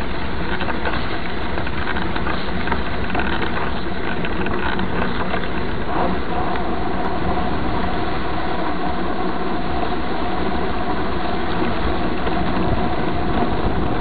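Steady rumble of wind on the camera microphone and mountain-bike tyres rolling over a dirt road while riding. A faint steady whine joins about six seconds in.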